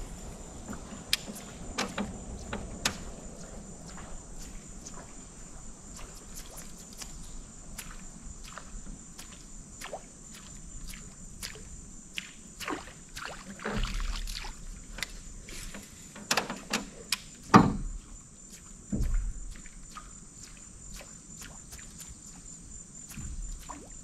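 A steady high-pitched drone of insects, with scattered light clicks and a few dull knocks about two-thirds of the way through.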